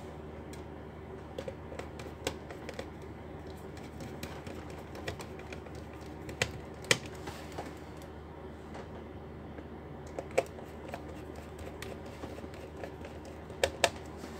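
Irregular, sharp clicks and taps of small hard plastic and metal laptop parts being handled and fitted, over a steady low hum. The loudest click comes about 7 s in, and a quick pair comes near the end.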